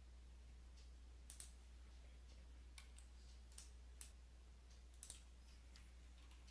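Faint computer mouse clicks, several single and a couple in quick pairs, over a low steady hum.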